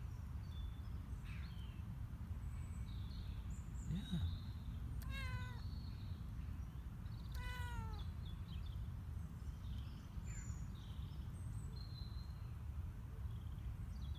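A Ragdoll kitten meowing twice, about two seconds apart, with birds chirping in the background.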